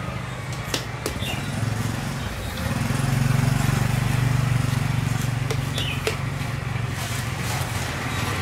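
Motorbike engine running with a steady low drone that swells for a few seconds in the middle, over a few light clicks from a cleaver cutting grooves in a pineapple.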